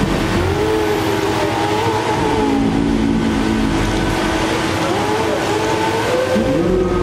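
Engines and hydraulics of giant mechanical street-theatre puppets running, a steady rumble with tones sliding slowly up and down.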